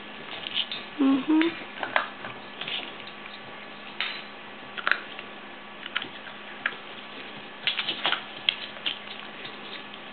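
Scattered small taps and rustles of a six-week-old Aussiedoodle puppy wriggling on a wood floor while a hand rubs its belly: claws and fur against the floor and hand. A steady mains hum runs underneath.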